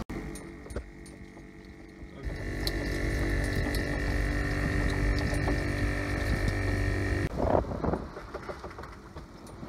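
Steady mechanical hum with a whine from machinery in a sailboat's engine compartment by the propeller shaft. It starts about two seconds in and cuts off suddenly about seven seconds in, followed by wind and water noise.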